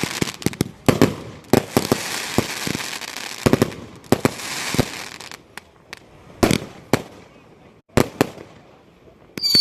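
Fireworks going off: a rapid string of sharp bangs over crackling, thinning after about five seconds to a few separate bangs. Near the end, shrill falling whistles start up.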